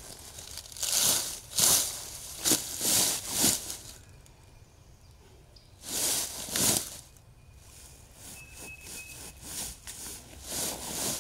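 Close rustling and crinkling noises in a string of short bursts: five or so in the first few seconds, a longer one about six seconds in, then softer ones near the end.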